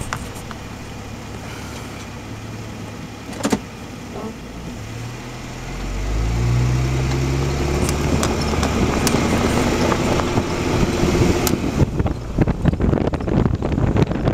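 Car engine running steadily, a single click a few seconds in, then the engine note rising as the car moves off and speeds up. Near the end, road noise takes over with many small knocks and rattles.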